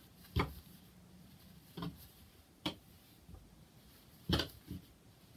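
Hands working chunky merino wool roving on a tabletop, knitting stitches by hand: a handful of soft, irregularly spaced taps and clicks in a quiet room.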